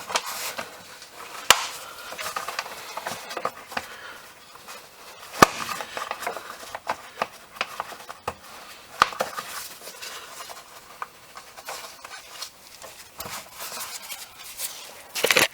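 Scattered clicks and light knocks of tools and parts being handled, with sharp clicks about a second and a half, five seconds and nine seconds in.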